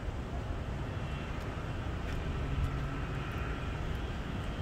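Steady low rumble of distant jet aircraft and road traffic, with a faint high whine through the middle.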